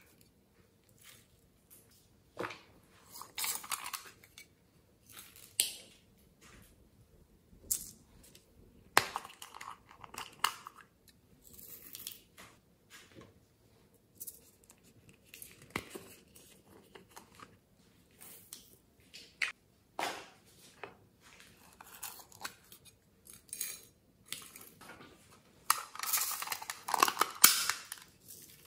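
Small plastic slime and clay containers being handled and opened, with irregular clicks, taps and rustles. Near the end comes a louder, denser stretch of rattling as glitter and sequins are shaken out of a container onto the slime.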